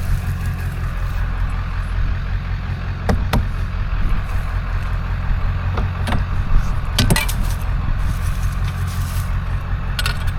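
A vehicle engine idling steadily, with a few short knocks of items being handled about three, six, seven and ten seconds in.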